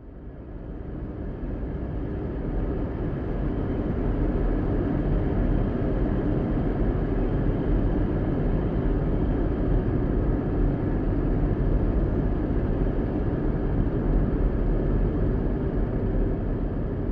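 Steady car driving noise, a low engine and road rumble, fading in over the first couple of seconds and then holding level.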